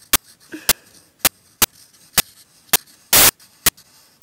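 Pencil tapping and scratching on paper right next to the microphone: sharp clicks about twice a second, with one longer scratching stroke about three seconds in.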